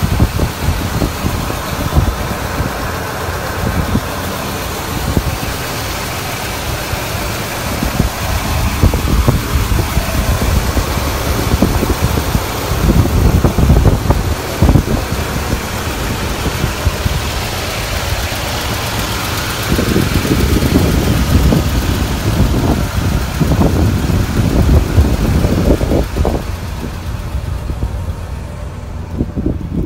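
1977 Lincoln Mark V's V8 engine idling steadily, heard with the hood open.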